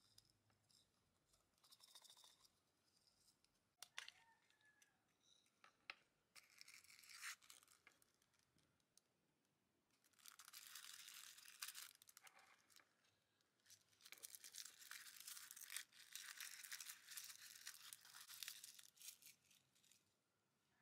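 Small plastic wrapper being crinkled and torn open as a tiny toy figure is unwrapped, in several long stretches from about a third of the way in to near the end. A few sharp clicks of small plastic parts come before.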